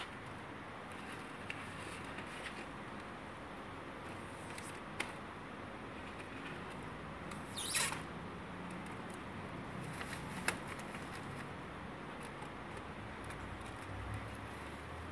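Plastic masking film and masking tape being handled against a car body, rustling and crinkling with scattered light ticks and one louder crinkle a little before the middle.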